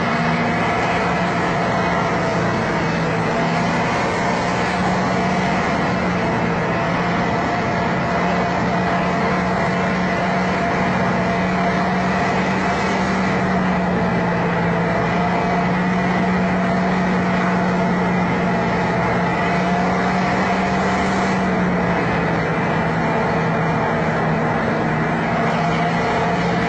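A loaded logging truck's engine running steadily under load, with a constant drone whose pitch dips slightly about twenty seconds in.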